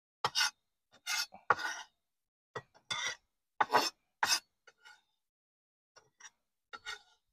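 Chef's knife on a wooden cutting board while mincing garlic: irregular sharp knocks and scrapes, one or two a second, lighter near the end.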